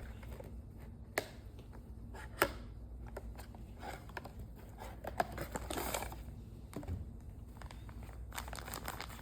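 A toy blind box's packaging being opened by hand: wrapping crinkling and tearing in fits and starts, with a few sharp snaps.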